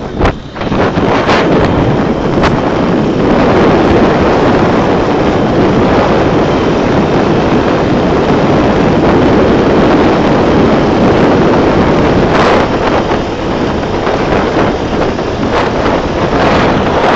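Loud, steady wind buffeting on the microphone from a moving motorized tricycle, mixed with the vehicle's running and road noise.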